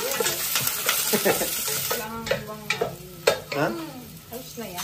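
Chopped ginger and chillies sizzling in a stainless steel pot on a gas burner, while a wooden spatula stirs and knocks against the pot. The sizzle is thick at first and thins out about two seconds in.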